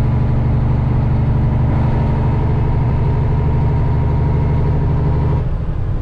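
Peterbilt semi truck's diesel engine running steadily under a heavy load, heard from inside the cab. About five and a half seconds in, the engine note changes abruptly and gets a little quieter.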